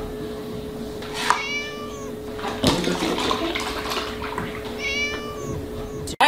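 A kitten meowing twice, short high-pitched mews, while milk glugs and splashes out of a tipped-over carton into a plastic tub. A single sharp knock comes a little under three seconds in, over a steady faint hum.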